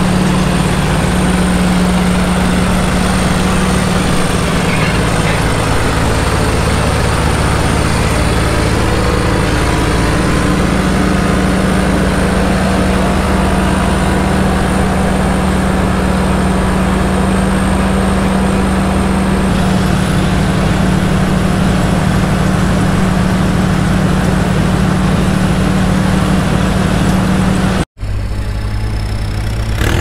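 Almond harvest machinery running steadily: a Flory pickup machine's engine and conveyor running loud while it unloads nuts into a nut cart. Near the end the sound cuts off for an instant and a different, quieter engine sound takes over.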